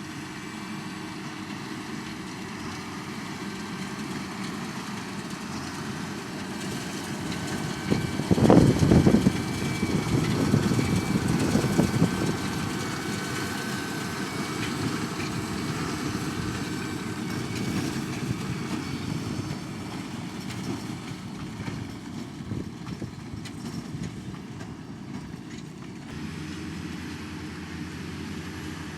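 Fendt 724 tractor running steadily with a New Holland BB930A big square baler, a continuous low machinery noise. It grows much louder about eight seconds in for a few seconds, then settles back to a steady level.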